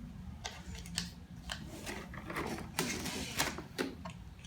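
Packing material being handled and pulled away: irregular clicks, scrapes and rustles.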